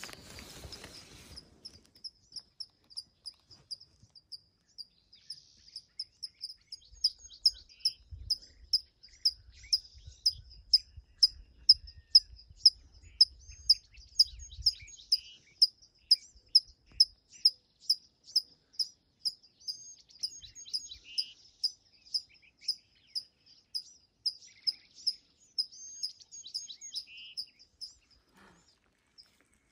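Outdoor morning birdsong: one high note repeated steadily about twice a second, with other birds' short chirps and slurred notes in between. The repeating note stops a couple of seconds before the end.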